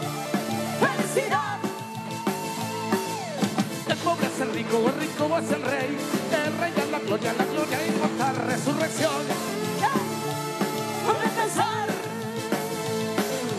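Live music from a tropical dance orchestra, playing with a steady beat and a melody line over it.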